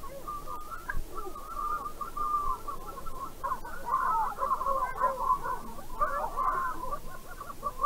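A flock of birds calling, many short calls overlapping in a dense, continuous chorus.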